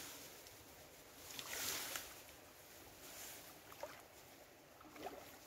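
Faint sloshing of river water around a person wading chest-deep, swelling softly about a second in and again a little later, with a few small ticks.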